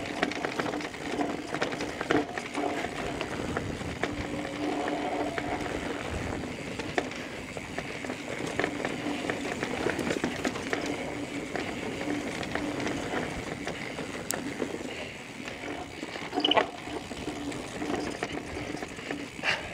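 Electric mountain bike ridden along a dirt singletrack: a faint motor whine that comes and goes under pedal assist, over the noise of the tyres on the trail and many small clicks and rattles from the bike over rocks and roots. A couple of brief louder noises near the end.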